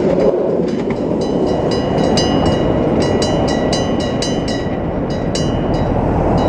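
Hiroden Miyajima Line train rumbling past a level crossing while the crossing's Nippon Signal EG1003 AC electric bell rings in rapid strokes, about four to five a second. The bell strokes thin out near the end.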